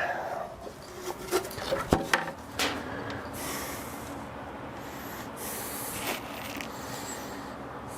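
Rubbing and scraping with a few sharp knocks, from parts and tools being handled on an engine being torn down.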